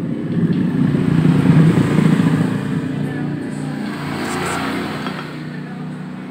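A motorcycle engine running and revving, swelling to its loudest about two seconds in and then slowly fading.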